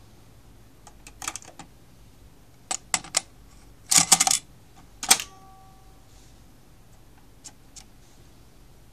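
Clicks and plastic clatter of a Sony TC-K81 cassette deck being loaded: the cassette door opens, a compact cassette clatters into the well, and the door snaps shut with a brief ring. The loudest clatter comes about four seconds in, and two faint ticks follow near the end.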